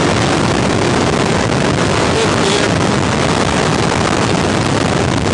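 Suzuki DRZ400SM's single-cylinder four-stroke engine running steadily as the bike is ridden, under heavy wind noise on the microphone.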